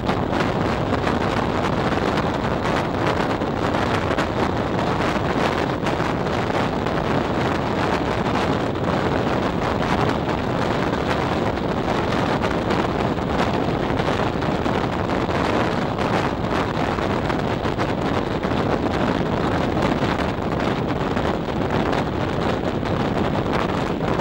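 Wind rushing over the microphone held out of a moving train's window, with the train's own running noise underneath as a steady, unbroken rush.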